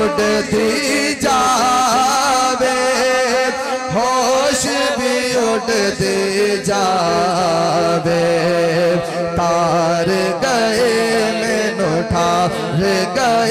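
A man singing a naat, the Urdu-Punjabi devotional song in praise of the Prophet, in long wavering held notes, heard through a microphone and loudspeaker.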